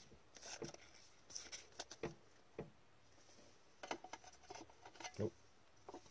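Faint, scattered clicks and brief rustles of trading cards and a clear plastic card sleeve being handled with gloved hands, the cards set down on a pile.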